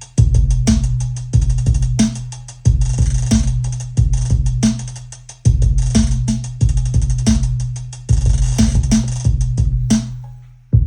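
Behringer LM Drum drum machine playing a trap beat from an 808 kit: booming 808 kicks and bass under hi-hat ratchets, fast note-repeat rolls of the hi-hat that change in speed as they are played live.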